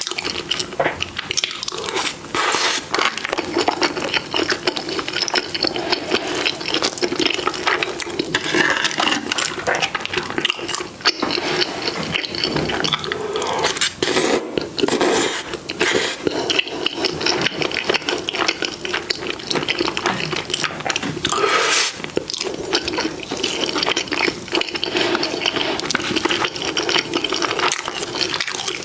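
Wet eating sounds: chewing and slurping of saucy food close to the microphone, with many small clicks.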